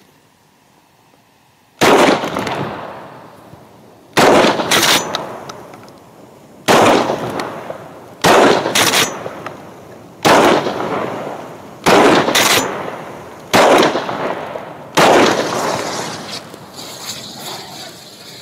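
DP-12 double-barrel pump-action 12-gauge shotgun firing a string of about ten loud blasts, one to two seconds apart and some in quick pairs, each fading off slowly.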